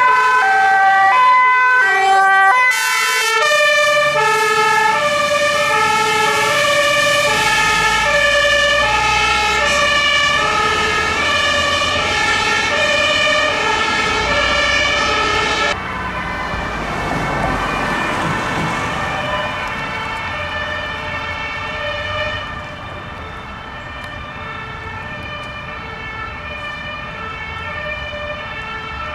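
Several fire engines' German two-tone sirens (Martinshorn) sounding together, each alternating between two pitches and overlapping out of step, over some engine rumble. They grow quieter about halfway through and again a little later.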